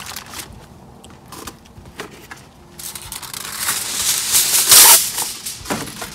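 Aluminium foil being handled: faint crinkles at first, then a louder crinkling rustle that builds and peaks about five seconds in.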